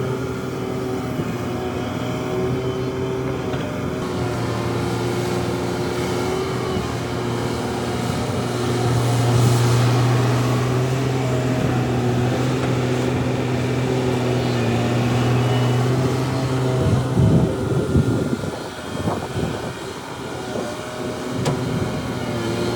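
Heavy diesel earthmoving machinery running with a steady engine hum that shifts slightly in pitch. About seventeen seconds in, the steady hum gives way to a few seconds of irregular low rumbles and knocks.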